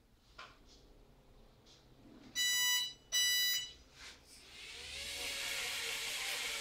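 Two loud electronic beeps, each about half a second long. Then a micro brushed FPV quadcopter's motors spin up, a whirr that grows louder over the last two seconds.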